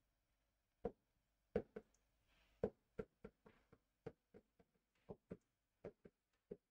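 A pen tapping and clicking on a smart board's writing surface during handwriting: about eighteen short, irregular taps.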